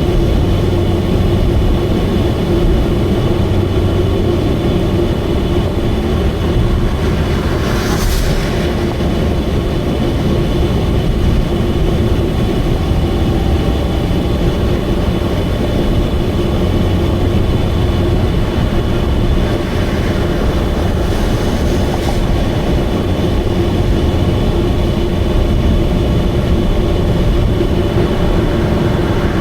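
Subaru Vivio's 660 cc four-cylinder engine and leaking exhaust heard at steady highway speed: a loud, even drone with a constant high whine, the racket of an exhaust leak. A brief rushing swell comes about eight seconds in and again around twenty seconds.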